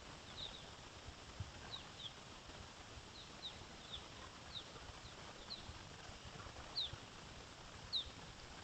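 A small bird calling repeatedly: short, high, falling chirps, a couple a second at uneven intervals, over a steady hiss.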